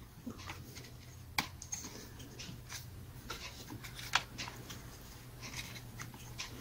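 Faint handling noises as the chainsaw's ignition wire is pressed back into its channel along the engine: light rustling and small plastic clicks, with a sharper click a little after the start and another about two-thirds through.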